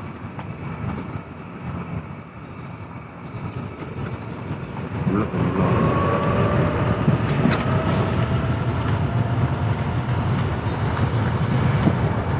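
Vehicle moving along a city street: a steady road and engine rumble that grows louder about five seconds in, with a faint whine slowly rising in pitch.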